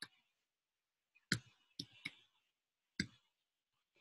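Faint keystrokes on a computer keyboard as digits of a phone number are typed: a handful of short, sharp clicks, spaced unevenly.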